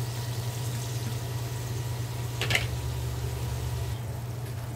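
Chopped chicken and chicken liver sizzling and bubbling in oil and their own juices in a wok, over a steady low hum. A single scrape of the spatula comes about two and a half seconds in.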